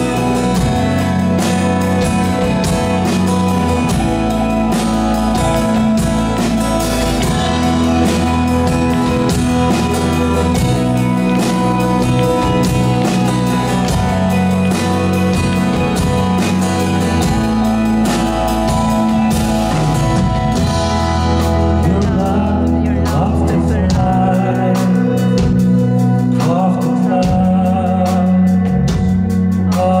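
A live band plays with acoustic guitar and drum kit, keeping a steady beat. About two-thirds of the way through, the drums drop back and a male voice sings over the guitar.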